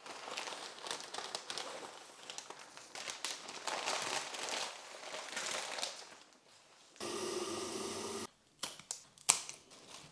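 Paper bouquet wrapping crinkling and rustling as it is pulled off a bunch of roses, for about six and a half seconds. Then a steady hiss lasting about a second, and a few sharp clicks near the end.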